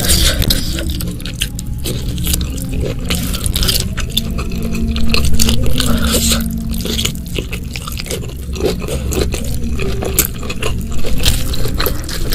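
Close-miked wet eating sounds: bare fingers squishing and tearing through spicy, sauce-soaked food and rice, with wet chewing and lip smacks between, full of short sharp clicks.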